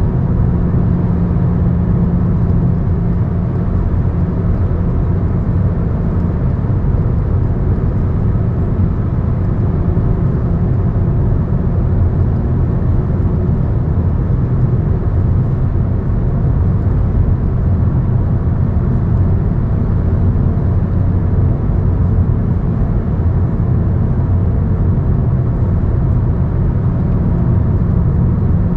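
Vehicle driving at a steady speed: a constant engine hum under road and wind noise, with no change in pace.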